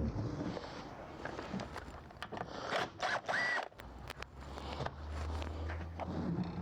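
Hog rings being cut off a truck seat cushion with cutters and the cloth cover worked loose: a busy run of sharp clicks and rasping, with a brief squeak about halfway through.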